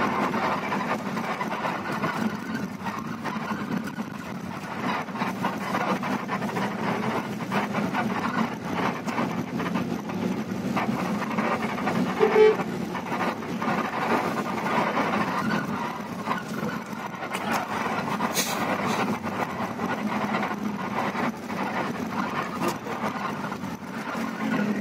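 Bus engine running steadily while the bus drives, heard from inside the cabin at the front, with light rattles and knocks from the body. There is one short horn toot about halfway through.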